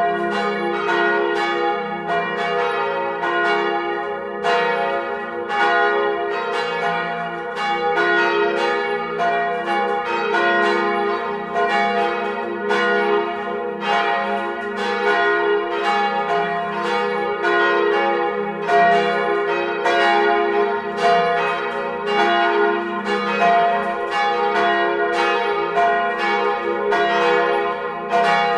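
Swinging church bells of a 1948 Petit & Fritsen ring, heard up close in the bell chamber: clapper strikes come about twice a second, each one ringing on into the next.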